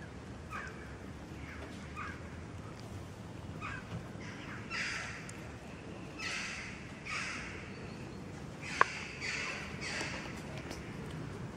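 A series of harsh animal calls. A few faint short ones come first, then about six louder, harsh calls in the second half, with a single sharp click among them.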